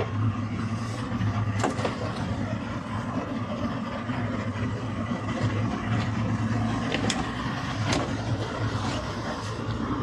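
Boat engine running steadily at low speed while the towboat maneuvers with a vessel under tow, a low even hum. A few short sharp knocks stand out, about one and a half seconds in and again around seven and eight seconds in.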